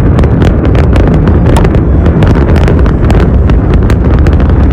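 Building implosion of the Tropicana hotel: a rapid, irregular series of sharp cracks from the detonations over a heavy, continuous low rumble.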